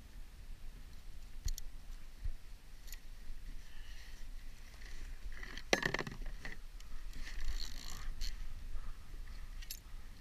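Metal chain and clips of a shark hook rig clinking and rattling as they are handled, in scattered short clicks with a louder rattle about six seconds in.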